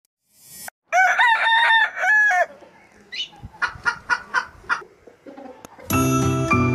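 A rooster crows once, a long call in several parts, followed by a quick run of about six chicken clucks. Music starts near the end.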